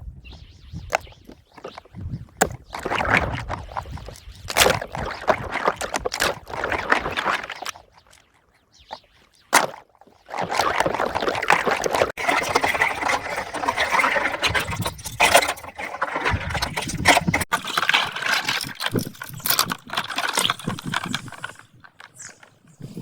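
Water splashing and sloshing with plastic rings, with many irregular sharp clicks and knocks. It drops almost to silence for about two seconds near the middle, broken by one sharp click.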